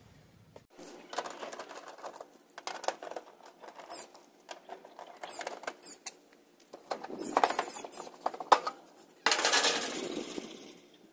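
Sheet-metal access panel of an outdoor AC condenser unit being unscrewed with a nut driver and taken off. There are scattered clicks and short high squeaks as the screws turn, then a louder scraping rattle about nine seconds in as the panel is pulled away.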